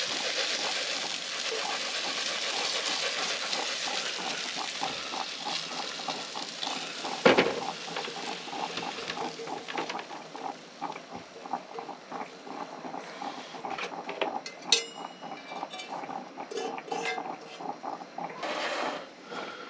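Food sizzling in a frying pan on a camp stove, the sizzle dying down after the first few seconds. A spatula knocks loudly on the pan about seven seconds in, then clicks and scrapes against the pan and plate as the food is served.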